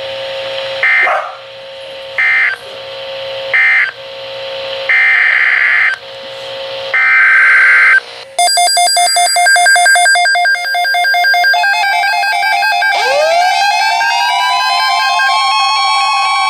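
NOAA weather radio alert: a run of short, buzzy Emergency Alert System data bursts, then weather-radio alarm tones start about eight seconds in. Pulsing tones give way to a layered alarm, in which one tone slides up and then holds steady.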